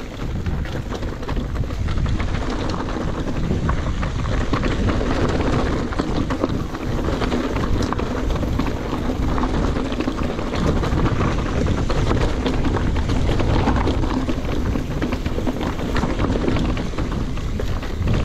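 Mountain bike riding over rough trail: a dense, steady rush of wind buffeting the microphone, with constant rattling and crunching from the tyres and bike over stones. It cuts off suddenly at the end.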